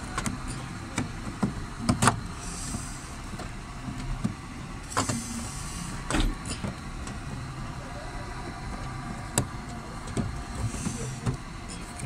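Scattered sharp plastic clicks and knocks, with a few brief scraping rubs, as the Chevrolet Spark's interior door handle housing is worked and pressed into the door trim panel so that its hooks catch.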